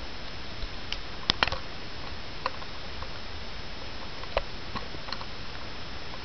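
Steady hiss from a camcorder's built-in microphone, with a faint high steady tone, broken by a handful of sharp ticks: two close together about a second and a half in, the loudest a little past four seconds.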